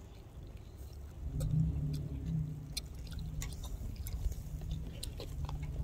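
A low, steady engine hum that grows louder about a second and a half in, with scattered light clicks.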